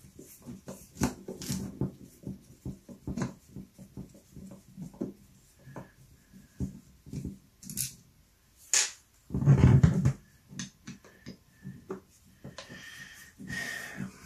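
Small clicks and knocks of metal parts being handled as a brushless angle grinder's gear head is taken apart, with a louder, longer clunk about nine and a half seconds in and a few short high squeaks near the end.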